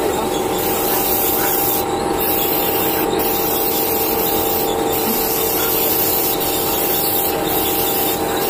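Compressed-air paint spray gun hissing in spells over a steady machine hum as it sprays paint.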